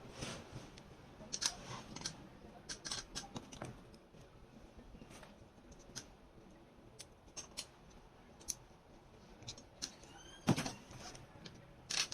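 Scattered light clicks and taps, like small tools or parts being handled, with one louder knock about ten and a half seconds in.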